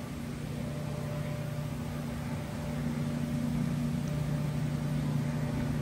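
A distant engine's steady low hum, growing slowly louder over a background hiss.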